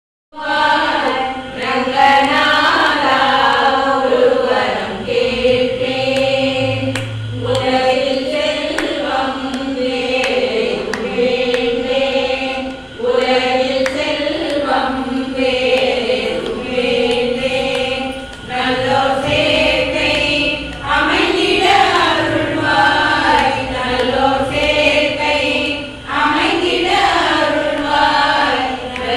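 A group of women singing a Tamil devotional song together, a bhajan praising Lord Ranganatha, sung in chant-like phrases into microphones.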